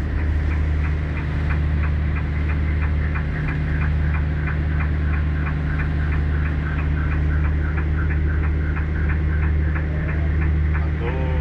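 Fishing boat's engine running steadily with a deep hum, with a light regular ticking, about four ticks a second, over it.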